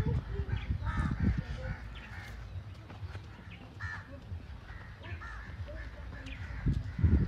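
Crows cawing repeatedly in short harsh calls, with low thumps of handling and movement near the start and just before the end.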